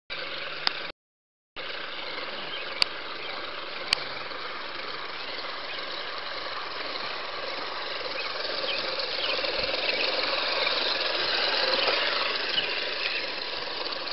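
Electric motor and gears of an RC rock crawler whining as it churns through muddy ditch water, mixed with the hiss of rain and water. It grows louder toward the end, with a short break in the sound about a second in.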